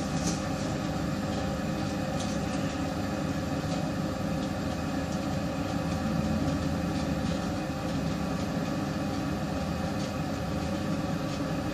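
Steady mechanical hum inside a lift car, made up of several unchanging tones over a low noise; the riders take it for the car's ventilation fan.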